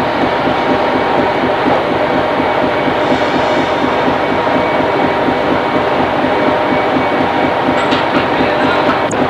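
A fishing trawler's machinery running steadily on deck: a loud, continuous mechanical noise with a fast, even pulse throughout, and a couple of brief clicks near the end.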